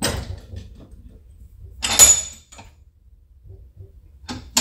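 Metal handling clatter on a Ford 7.3L Godzilla VCT cam phaser held in a bench vise, with a screwdriver against the steel part. There is a loud ringing metallic clank about two seconds in and a sharp click near the end.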